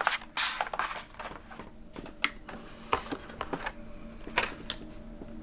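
Hot Wheels carded die-cast cars in plastic blister packs being handled: irregular plastic clicks and brief crinkling rustles.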